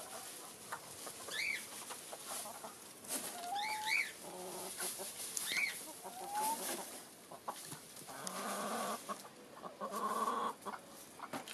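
Chickens clucking with a few short calls, over the rustle of dry straw being pushed into nest boxes.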